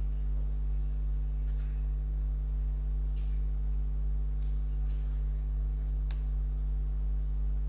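Steady low electrical mains hum on the recording, with a few faint clicks from computer keys being typed.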